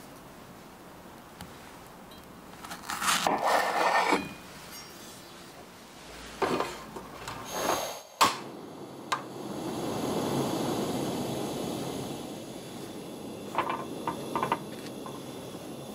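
A knife slices strawberries on a wooden cutting board in a few short strokes. About halfway, a portable gas stove's knob clicks sharply and its burner lights with a hiss that swells and fades under the ceramic grill plate and wire rack. Near the end come light clicks as a slice of bread is set on the metal rack.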